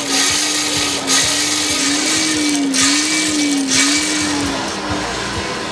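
Hand-cranked forge blower whining as it is turned, feeding air to a coal fire. The pitch rises and falls about once a second with the cranking, over a hiss of air. The whine stops about five seconds in.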